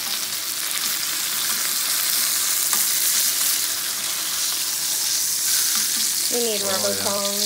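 Black sea bass fillets sizzling in hot olive oil in a nonstick frying pan. Metal tongs click and scrape against the pan now and then as the fillets are turned.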